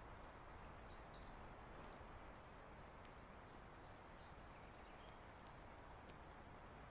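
Near silence: quiet woodland background, with a few faint short high chirps about a second in and again in the middle.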